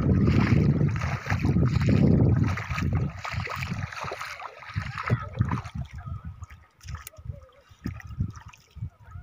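Shallow river water sloshing and splashing as people wade and work their hands in the sandy riverbed. A loud, low rush of wind on the microphone fills the first two or three seconds, then fades into scattered splashes.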